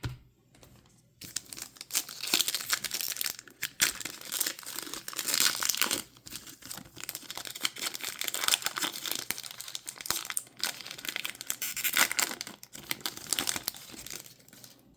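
Trading-card pack wrapping being torn open and crinkled, a busy crackling and tearing that runs with a few short pauses from about a second in until near the end.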